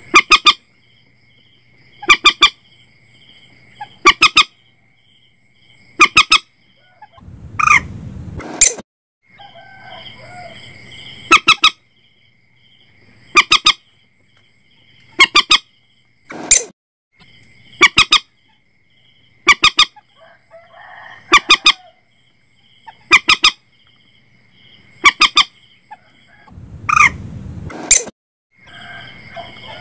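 Common moorhen (mandar batu) giving short, sharp calls repeated about every two seconds, some doubled, over a steady high-pitched background tone.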